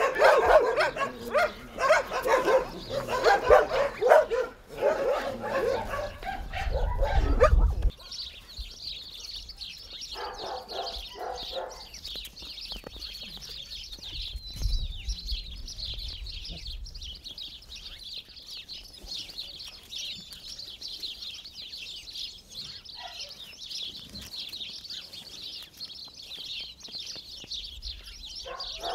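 A pack of dogs barking together, many overlapping barks, for the first several seconds. The barking then stops abruptly and a steady high chirping of small birds carries on, broken by a short burst of barking a couple of seconds later and a few single barks after.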